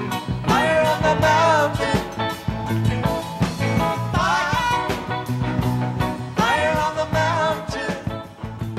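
Background music: a rock song with a sung vocal line over bass and drums, keeping a steady beat.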